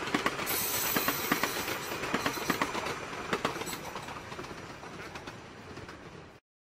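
Train wheels running over station trackwork, clacking irregularly over rail joints and points above a steady rumble. The sound fades over the last couple of seconds and cuts off abruptly near the end.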